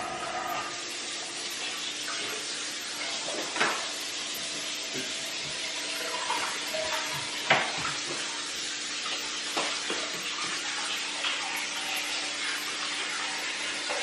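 A utensil scraping frosting out of a plastic frosting tub, with a few sharp clicks of the utensil against the tub, over a steady hiss.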